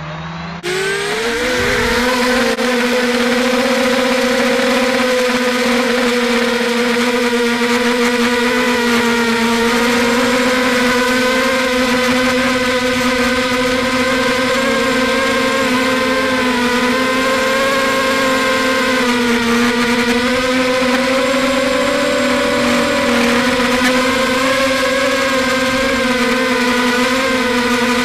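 Electric motors and propellers of a small RC multirotor, heard through its own onboard camera. They spin up with a rising whine about half a second in, then run as a steady hum whose pitch wavers a little with the throttle.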